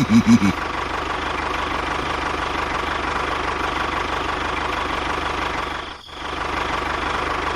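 Small motor of a miniature model machine running steadily with a faint constant whine, dropping out briefly about six seconds in.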